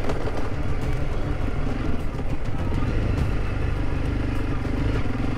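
Honda CRF300 Rally's single-cylinder four-stroke engine running steadily at low road speed, with wind and road noise.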